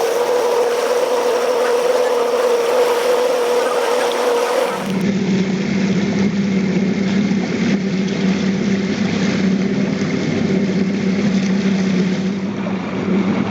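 A small boat's motor running steadily under way over a constant hiss. About five seconds in, the engine note suddenly drops to a lower pitch.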